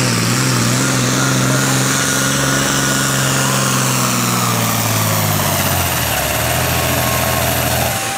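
Super Farm pulling tractor's turbocharged diesel engine running steadily at high revs. Its pitch drops about six seconds in, and near the end the engine eases off as a high whine winds down.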